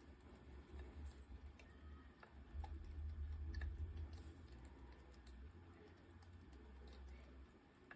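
Faint low rumble with scattered light clicks and taps, the rumble swelling for a second or two in the middle.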